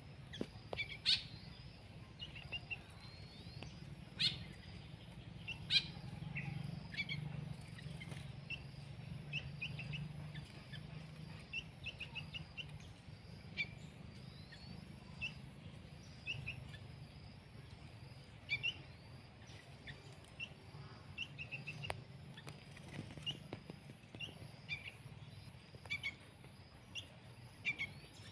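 Small songbirds chirping in short, scattered calls, with a few sharp clicks, over a faint low rumble.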